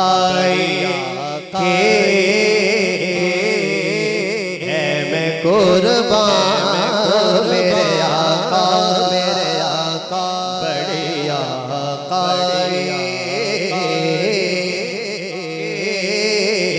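A man's solo voice singing a naat (Urdu devotional poem) into a microphone, with long ornamented melodic lines over a steady low drone.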